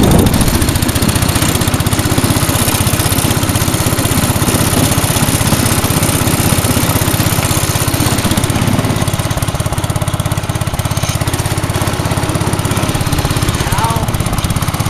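Cub Cadet 100 garden tractor's 10 hp Kohler single-cylinder engine running steadily while the tractor plows snow.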